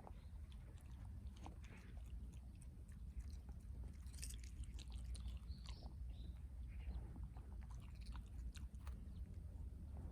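A dog tearing at grass and chewing it: irregular crisp snaps and crunches of munching, over a steady low rumble.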